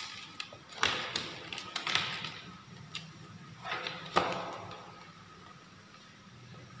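Multimeter test probes and their leads being handled and pressed onto a wire connector: a few sharp plastic clicks and knocks with rustling of the leads, the loudest click near the start.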